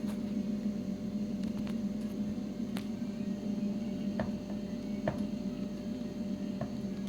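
Steady electrical hum from a CNC machine, with a few faint, scattered clicks.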